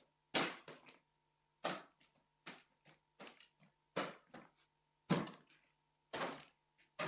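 Play balls thudding on a wooden sports-hall floor and against hands, an irregular thud every half second to a second, some followed by quick smaller bounces.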